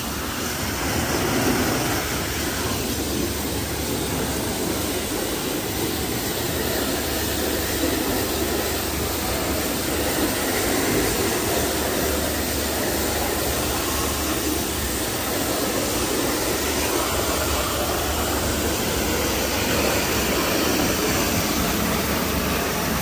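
Christ Genius Vitesse automatic car wash running through a wash cycle: a steady rushing noise with a low machine hum underneath.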